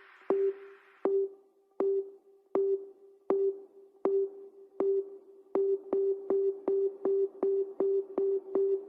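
Electronic music intro: a single mid-pitched beep with a sharp click, repeating about every three-quarters of a second, then doubling in speed about five and a half seconds in, like a DJ build-up.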